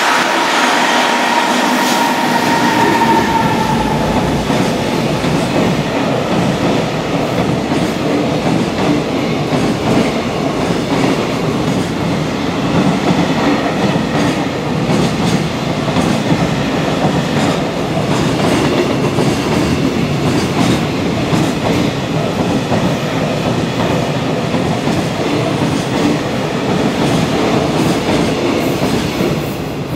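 A long high-speed container freight train passing through a station at speed, its wheels clattering continuously over the rail joints as the wagons rumble by. A high whine in the first few seconds falls slightly in pitch as the locomotive goes past. The noise drops away at the end.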